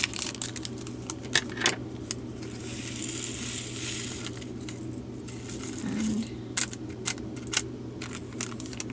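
Tiny resin diamond-painting drills being poured from their packet into a small plastic storage container: a rattling hiss of many beads from about two and a half to five seconds in, with a few sharp clicks of the container and packet before and after.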